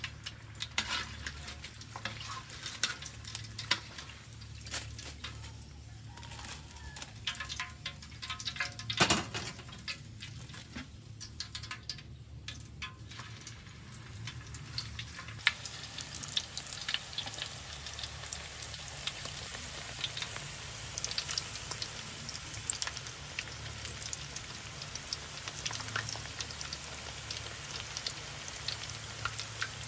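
Hot oil in a large wok deep-frying coated pieces: steady sizzling with sharp pops, growing into a denser crackle from about halfway as more pieces are dropped into the oil.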